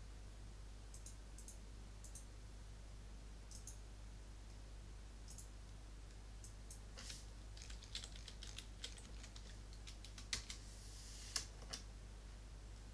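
Computer keyboard typing a short run of keystrokes in the second half, after a few isolated mouse clicks, over a low steady hum.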